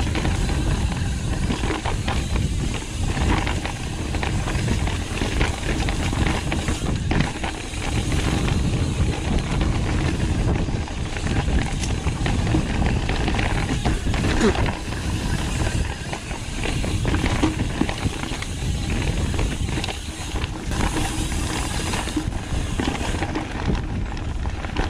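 Pivot Firebird 29 mountain bike riding fast down a dirt trail: a steady rush of wind over the chest-mounted microphone, mixed with the rumble and rattle of tyres and frame over the bumpy ground.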